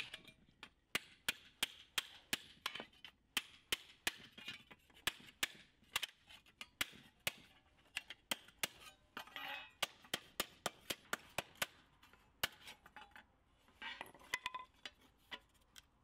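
Steel hammer striking a thin galvanized steel strip laid on a wooden stump, flattening a bent corner: a long run of quick metallic taps, about three a second, that stops a few seconds before the end.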